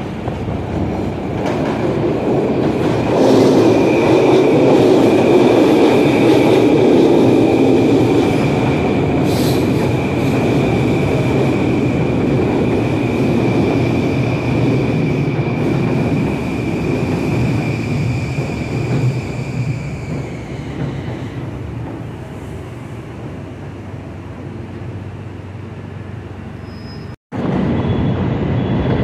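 Long Island Rail Road electric train running past on an elevated track: a heavy wheel rumble builds as it passes, with a steady high whine over it, then both fade as it goes away. Near the end the sound drops out for an instant.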